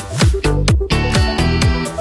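Upbeat electronic dance backing music with a steady kick drum about twice a second.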